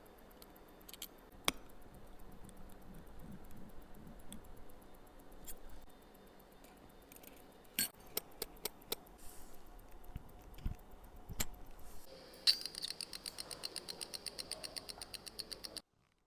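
Small metal tools clicking and tapping on watch parts during a watch repair. About three quarters of the way in, a quick, even run of small clicks, several a second, sets in, as from a watch mechanism being worked.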